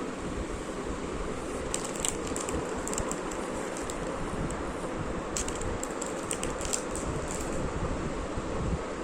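Steady rushing noise with two spells of quick, light clicks: one about two seconds in, the other from about five to seven and a half seconds in.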